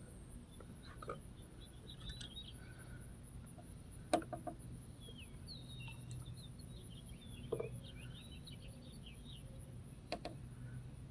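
Faint bird twittering: many short chirps, busiest from about five to nine seconds in. A few sharp clicks stand out, the loudest about four seconds in.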